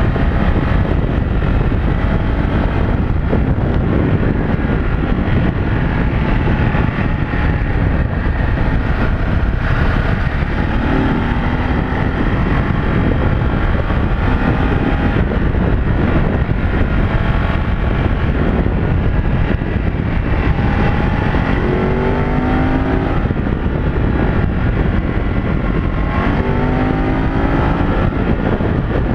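Wind rushing over the microphone at road speed, over the 937 cc L-twin engine of a 2022 Ducati DesertX, still being run in. The engine's note climbs as it accelerates about ten seconds in, again a little past twenty seconds, and near the end.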